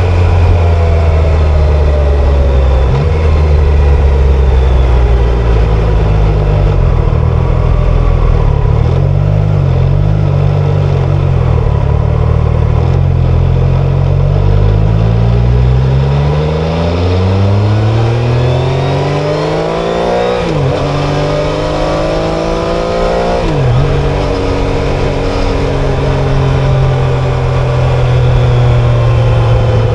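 Triumph Tiger Sport 660's 660 cc inline three-cylinder engine running steadily, then pulling hard with a long rising rev about halfway through. The pitch drops sharply twice, a few seconds apart, at the upshifts, and the engine settles into a steady cruise near the end.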